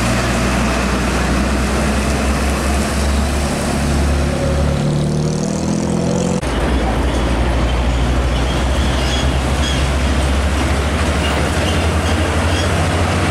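Diesel engine of an Isuzu Giga container tractor-trailer running as it passes close and pulls away, its note rising for about two seconds. After a sudden cut about six seconds in, a Hino 500 container truck's diesel engine gives a steady low drone.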